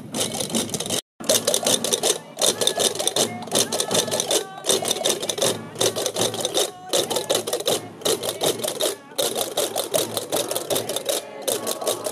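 Chácaras, the large castanets of La Gomera, clattering in a fast, unbroken rattle that breaks off for a moment about once a second, with voices beneath. The sound cuts out completely for an instant about a second in.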